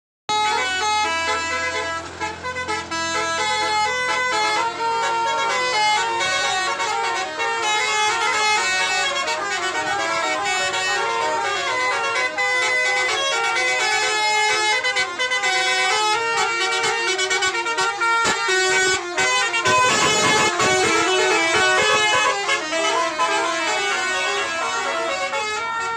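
Indonesian bus 'telolet' horns, multi-tone air horns playing melodies, several notes sounding together and stepping from pitch to pitch without a break. A noisy swell rises under the horns about twenty seconds in.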